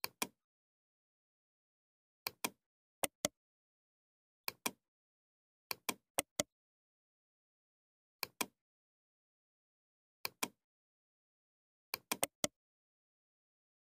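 Computer mouse button clicking, mostly in quick pairs like double-clicks, about nine times, with dead silence between the clicks.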